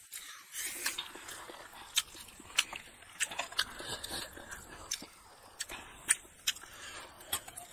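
Close-miked eating sounds: wet chewing and lip smacks over mouthfuls of rice and egg curry, with sharp irregular clicks about once or twice a second.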